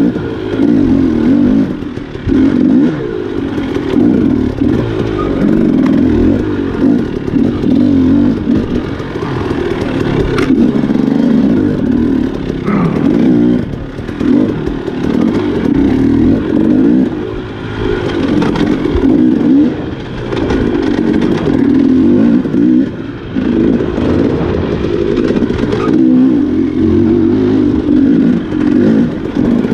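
Enduro dirt bike engine being ridden hard on a trail, its revs rising and falling as the throttle is opened and closed every few seconds, with occasional knocks.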